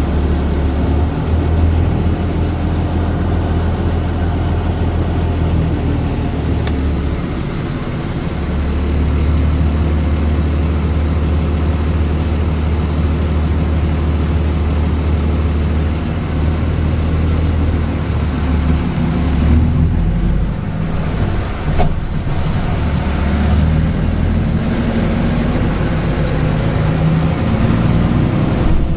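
Mitsubishi Fuso city bus engine running as the bus drives, heard from inside the passenger cabin as a steady low drone that shifts in pitch every few seconds. A couple of short knocks come about two-thirds of the way through.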